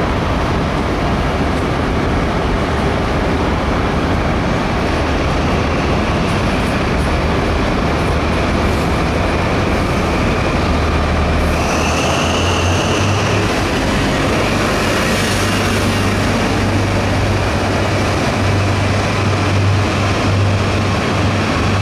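Grand Central High Speed Train pulling out, a steady diesel drone and wheel rumble as the coaches pass. The drone grows heavier in the second half as the rear Class 43 power car comes by, and a brief high whine sounds about twelve seconds in.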